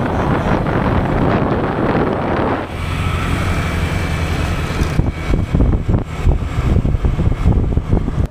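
Wind buffeting the microphone of a rider on a moving motor scooter. From about three seconds in, a steady engine hum with a faint higher whine comes through, under gusty buffeting.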